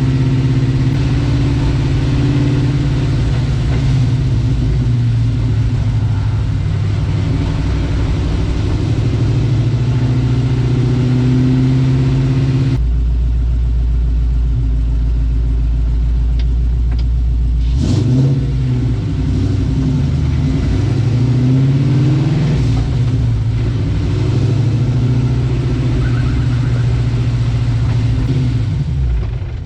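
Mustang's Coyote V8 engine running on the road. In the first part it pulls at a steady pitch; after an abrupt change about halfway, the revs rise and fall several times as it accelerates and shifts.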